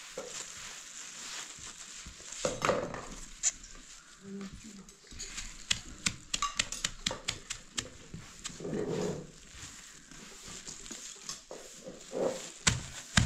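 Knife cutting dried food on a plastic sack: a quick run of sharp clicks for about two seconds in the middle, and more knocks near the end. A few short vocal calls come in between.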